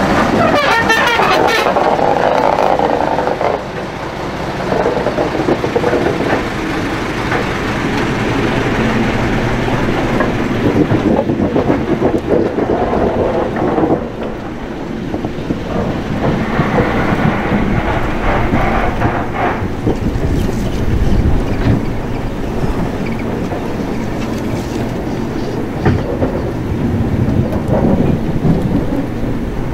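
Vulcan Foundry 0-4-0 diesel shunter running as it moves slowly past, loudest in the first few seconds, then its pair of 1959 ex-London Underground driving trailer cars rolling by close on the rails.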